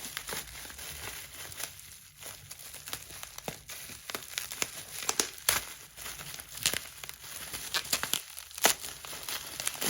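Packaging being handled and unwrapped by hand: irregular crinkling and rustling with sharp snaps, the loudest about halfway through and near the end.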